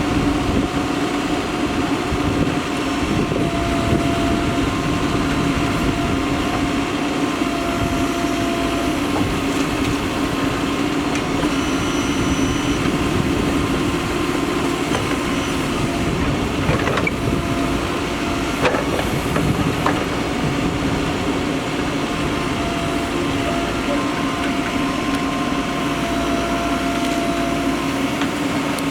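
Backhoe loader's diesel engine running steadily under load, with a higher engine tone that comes and goes as it works. There are a couple of light knocks about two-thirds of the way through.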